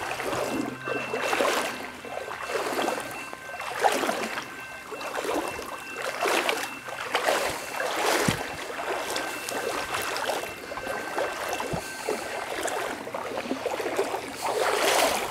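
Footsteps wading through shallow creek water, a splash and slosh with each step, roughly one step a second.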